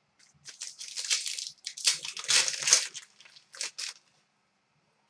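Crinkling and rustling of wrappers and plastic as trading cards are handled, in a string of short bursts lasting about three and a half seconds.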